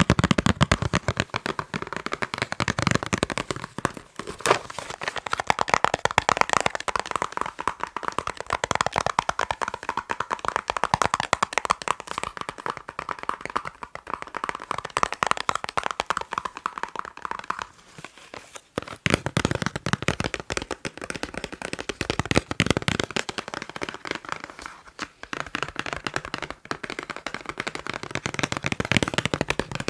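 Fast tapping on boxes: quick, dense clicks and taps with brief pauses about four seconds in and again a little past the middle.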